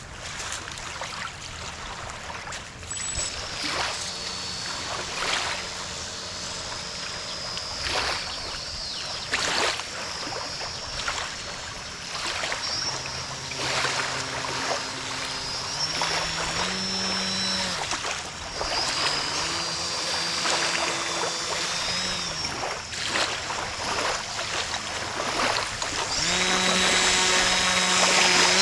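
A homemade radio-controlled boat's motor running on the water, its whine stepping up and down in pitch several times as the throttle is changed, and getting louder near the end as the boat comes close. Small waves lap and splash at the shoreline throughout.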